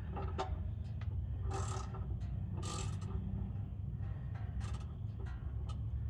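A wrench working the oil drain plug loose on a Jeep YJ's oil pan: several short metal scrapes and clicks, over a steady low rumble.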